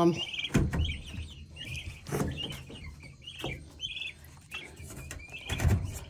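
Young turkeys (poults) peeping repeatedly in short high chirps, with a few dull knocks on wood, the loudest near the end.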